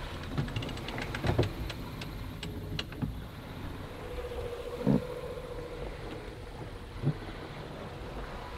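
Steady rush of wind and water on a small sailboat under way. A run of sharp clicks over the first three seconds and a few knocks come as the preventer line and deck gear are worked. A steady hum joins in the second half.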